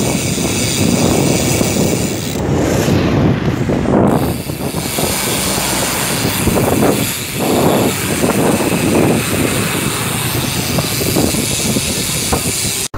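Wind buffeting the microphone of a camera on a moving bicycle, a loud rough rushing that swells and dips, mixed with road noise. It breaks off abruptly near the end.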